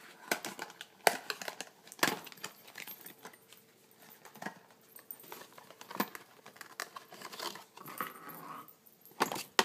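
Hands handling paper and packing from a shipping box: irregular rustling with scattered sharp clicks and knocks, the loudest about one and two seconds in and again near the end.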